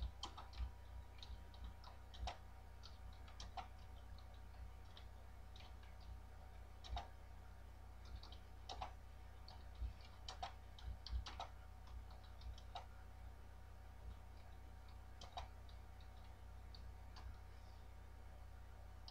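Computer keyboard keystrokes, faint and irregularly spaced, as a sentence is typed slowly, over a low steady hum.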